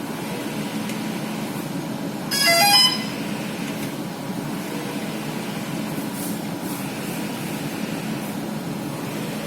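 Steady mechanical hum, with a short run of electronic tones stepping up in pitch about two and a half seconds in.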